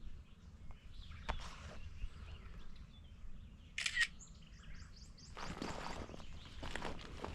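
A camera shutter clicks once about four seconds in, taking a photo. Birds chirp just after it, and footsteps start near the end.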